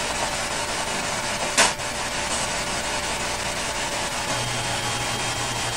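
Steady hiss with a single sharp click about a second and a half in; about four seconds in a low steady hum starts: a freezer's motor kicking on.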